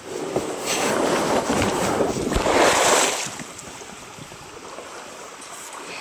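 Rushing noise of wind and water on a compact camera's microphone aboard a moving kayak, loud for about three seconds, then dropping suddenly to a softer steady hiss.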